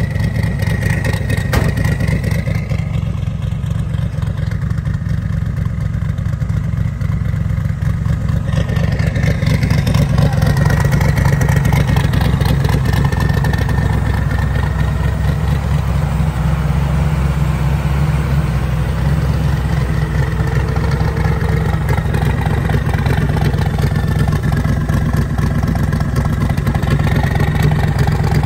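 Twin-turbocharged LS V8 in a Chevy II Nova drag car idling steadily.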